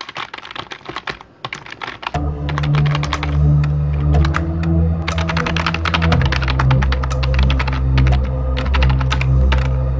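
Intro sound design: rapid, irregular typing key clicks, joined about two seconds in by a loud, deep bass music bed whose notes shift once about six seconds in.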